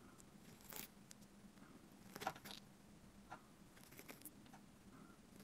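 Giant land snail eating pumpkin right at the microphone: faint, scattered crackling clicks as its radula rasps the flesh, the loudest a little past two seconds in, over a faint low hum.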